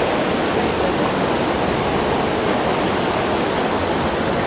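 Waterfall water rushing steadily over rocks, an even, unbroken hiss and rumble.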